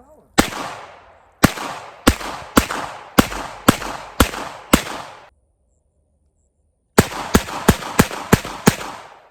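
Diamondback Sidekick revolver firing .22 Magnum rounds in quick succession, eight shots about half a second apart, each with a short echo tail. After a brief silence, a faster string of six more shots.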